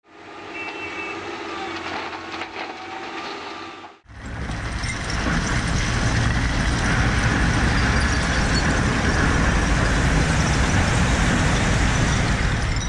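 Mercedes-Benz Arocs three-axle tipper truck dumping a load of crushed rubble and gravel from its raised body. About four seconds in, a loud, steady rush of stones sliding out starts abruptly over the truck's running engine. Before that comes a quieter sound with a few steady tones.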